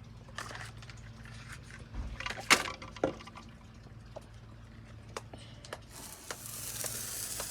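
A few faint clicks and taps, then about six seconds in a firework catches and starts a steady hissing sizzle.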